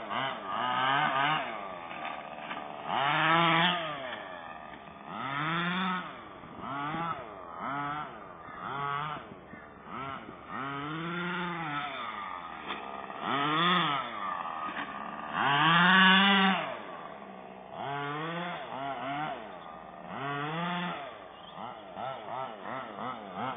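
Two-stroke petrol engine of an HPI 5T radio-controlled truck revving up and down over and over, its pitch rising and falling every second or two as it accelerates and slows around the track.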